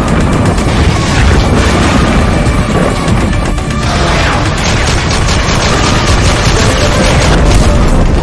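Animated logo intro soundtrack: loud music layered with booming hits and gunfire sound effects, with a rapid run of shots in the second half.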